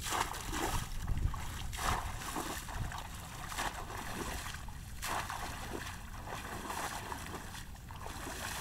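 Water splashing and sloshing irregularly as someone wades through a shallow, weedy pond and works a cover trap into the water, over a steady low rumble.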